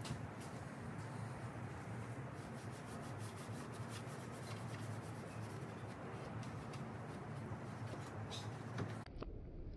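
Microfiber cloth rubbing over plastic engine-bay trim: a steady wiping noise with many light scratchy ticks, which stops abruptly near the end.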